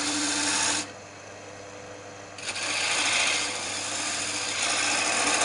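Gouge cutting beads into a spinning softwood spindle on a wood lathe: a steady scraping hiss from the cut. It breaks off for about a second and a half near the start, leaving only the lathe's motor hum, then resumes.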